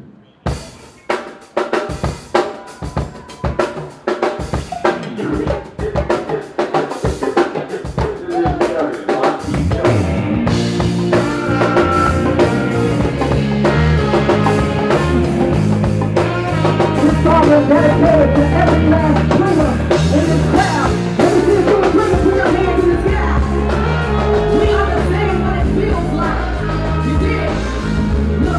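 Live band starting a song: the drum kit plays alone at first, then about nine seconds in the bass and the rest of the band come in and play on at full volume.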